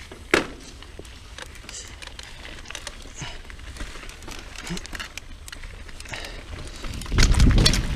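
Mountain bike riding over gravel and dirt trail: tyres crunching and the bike rattling, with scattered clicks and one sharp knock shortly after the start. Near the end it turns into a much louder rumbling and clattering.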